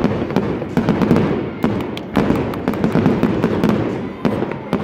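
Fireworks going off in quick succession: many sharp bangs and crackles over a continuous low rumble of echoing booms.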